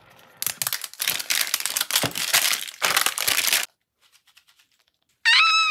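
Paper wrapper crinkling and tearing for about three seconds as it is peeled off a plastic capsule ball. Near the end a child gives a high-pitched excited squeal.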